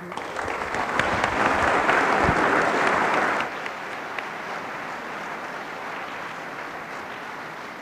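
Audience applauding at the end of a speech, loudest for the first three and a half seconds, then dying down to a steadier, quieter clapping.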